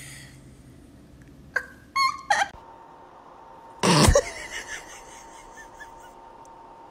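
A cat giving a few brief high-pitched calls, then a loud, sudden burst of noise about four seconds in.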